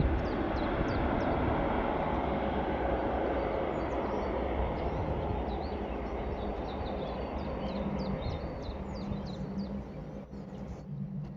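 Small birds chirping repeatedly over a broad rushing rumble that slowly fades away, like a passing vehicle or train receding.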